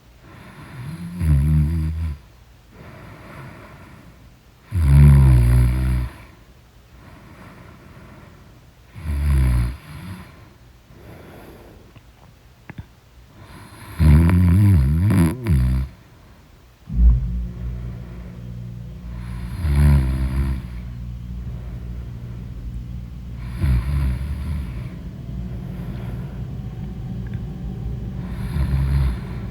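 A person snoring loudly in deep sleep, one snore about every four to five seconds, about seven in all. A little past halfway a steady low rumble starts and runs on under the snores.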